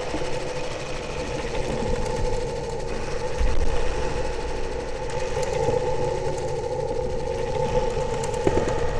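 Noisy electronic drone from a Eurorack modular synthesizer and iPad found-sound patch: two steady held tones over a rough haze of noise, with a low rumble swelling briefly about three and a half seconds in.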